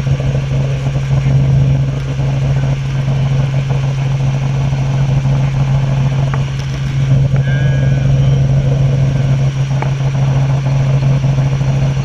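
Robinson R44 helicopter in flight: its six-cylinder piston engine and rotors make a loud, steady drone with a strong low hum.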